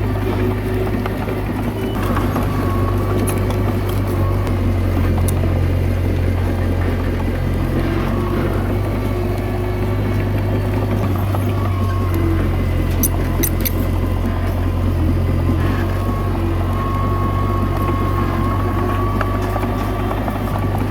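Komatsu D21A mini bulldozer's diesel engine running steadily under working load, with a held whine above the engine note and a few light clicks about two-thirds of the way through.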